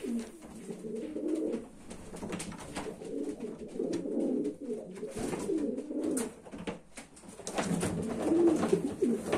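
Racing pigeons cooing, a continuous low warbling with scattered faint clicks, growing louder near the end.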